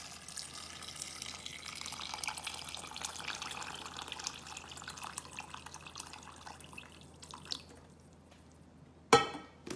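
Water poured from a white kettle into a stainless steel saucepan of green beans and potatoes, a steady splashing trickle that tails off after about seven seconds. A brief knock near the end.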